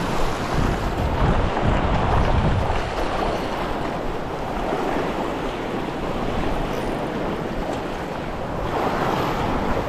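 Sea waves washing and splashing close by, with wind noise on the microphone.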